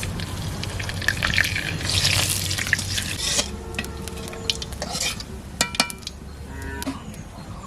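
Metal spoon stirring and clinking in a cooking pan, with bursts of sizzling from hot oil as spices go in.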